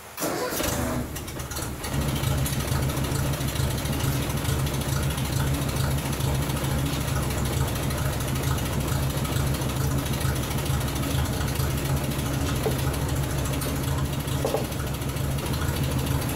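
Tractor engine idling steadily, cutting in abruptly with a few knocks in the first second.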